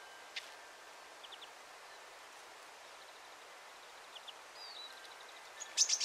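Small finches and tits calling: a few faint short high calls and a thin, evenly repeated call series, then a quick cluster of sharp high chips near the end, the loudest sound, over a steady faint hiss.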